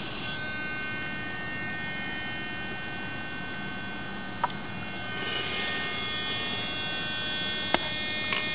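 Steady electrical hum and buzz made of several fixed tones, with two sharp clicks, about four and a half seconds in and near the end.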